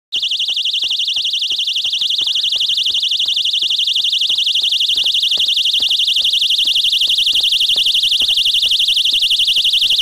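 Angel's Wing personal safety alarm keychain sounding: a loud, shrill electronic alarm tone that warbles rapidly and holds steady without a break.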